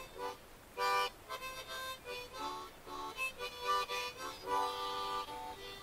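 Harmonica music: short chords and single notes following one another in a lively rhythm.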